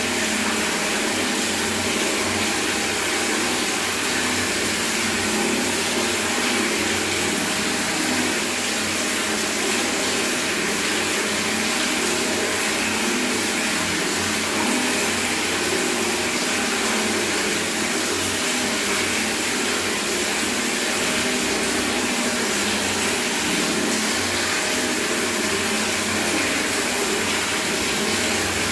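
Water from a bathroom tap running steadily into a bucket: a continuous, even splashing rush.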